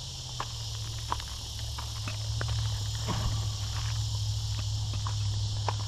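Footsteps on loose gravel, irregular crunching steps, over a steady high chorus of insects and a steady low hum.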